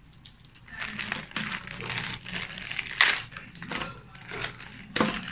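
Clear plastic bags holding Beyblade parts crinkling and rustling as they are picked up and moved about, in irregular crackles with a sharper one about three seconds in and another near the end.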